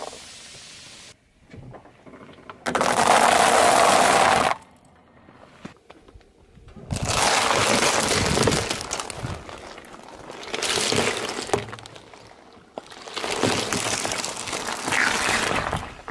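A car tyre crushing a tray of raw eggs in their pulp carton: several separate loud stretches of crackling and squashing, each starting and stopping sharply.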